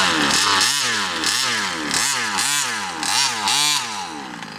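Engine revved in about six quick blips in a row, its pitch rising and falling each time, then easing off near the end.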